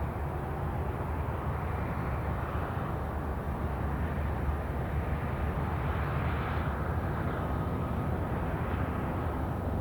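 Jet airliner's engines running as it passes, a steady low rumble with a higher hiss that swells about six seconds in and then drops away, followed by a faint steady whine.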